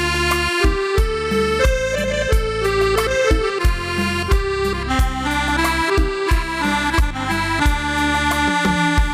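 Yamaha PSR-S750 arranger keyboard playing music: a held, accordion-like melody over a bass line and accompaniment, with bass notes changing about twice a second.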